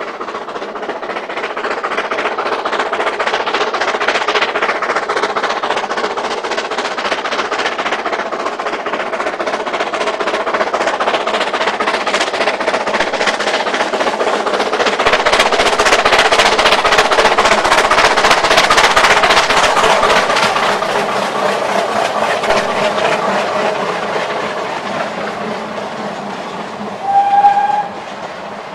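Narrow-gauge steam train going by: the locomotive's working and the rattle of its carriages on the rails build to a peak as it passes, then fade away. A short, loud steam whistle sounds near the end.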